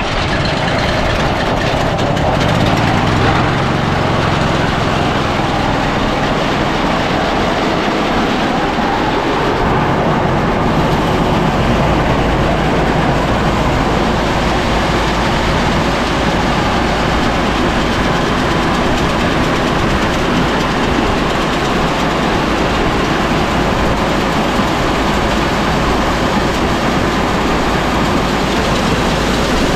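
Small gasoline engine on a grain truck auger, pull-started and running steadily under load as the augers move shelled corn. About eleven seconds in a deeper steady hum joins the engine noise.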